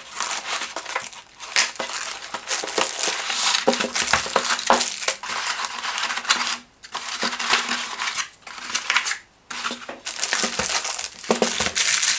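Plastic packaging crinkling and crackling as it is handled and pulled open, with small clicks and knocks of items being taken out, stopping briefly a few times.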